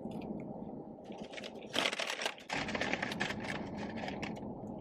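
Quick light clicks and crinkling, with a dense crackling burst about two seconds in, over a steady low hum.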